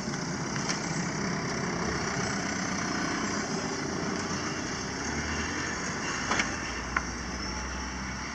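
Van engine running at idle and low speed as it moves off, a steady hum with two short sharp clicks near the end.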